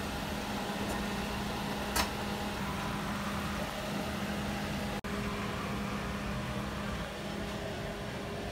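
Perodua Alza's engine idling, a steady mechanical hum, with a single sharp click about two seconds in.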